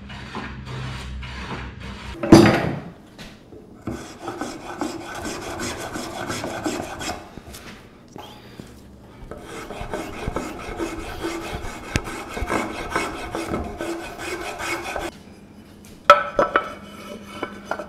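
Spokeshave shaving the corners of a cherry frame-saw handle in quick repeated scraping strokes, with short pauses. A sharp knock about two seconds in, and a few clicks near the end as the handle is pushed onto the blade's end fitting.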